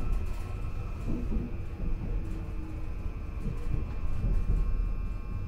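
Seoul Subway Line 2 electric train running, heard from inside the passenger car: a steady low rumble of wheels on the rails with a steady high whine over it.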